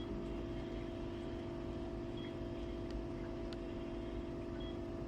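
Steady mechanical hum at one constant pitch, with no change in speed or level.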